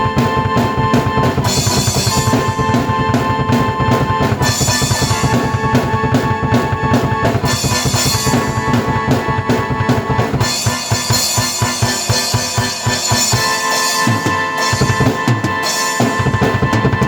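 Drum kit and keyboard played together: a busy, steady beat of kick and snare under held keyboard notes and chords.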